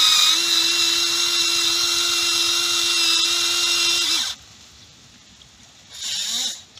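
Electric motor and gears of a Huina toy RC excavator whining steadily at one pitch as the boom raises a bucket of dirt. The whine cuts off about four seconds in.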